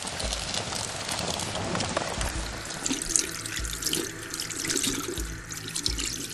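Running, splashing water with a dense crackling hiss, over faint ambient music with occasional deep low pulses.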